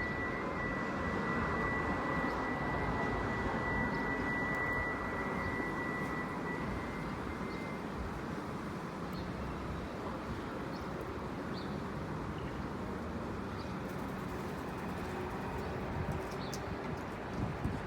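Steady outdoor street and traffic noise, with a steady high-pitched tone for the first eight seconds or so. A few faint short bird chirps come through in the second half.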